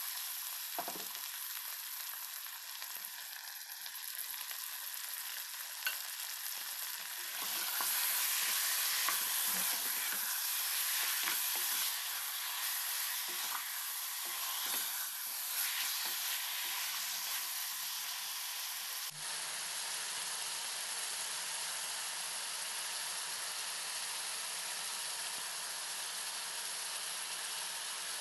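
Raw chicken pieces sizzling in hot oil with sliced onions in a pot, stirred with a spatula that knocks and scrapes against the pot. The sizzle swells for a few seconds in the middle, then changes abruptly about two-thirds through to an even sizzle without stirring.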